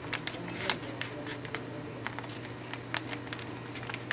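A sheet of paper being folded and creased by hand: scattered crinkles and light taps, over a steady low hum.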